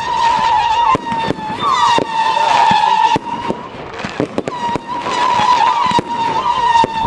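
Fireworks going off: repeated sharp bangs and crackles, over a steady, slightly wavering high whistling tone.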